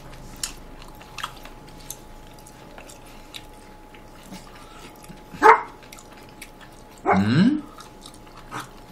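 Faint chewing clicks at a dining table, with a dog giving two short, high barks, one about five and a half seconds in and a longer falling one about seven seconds in.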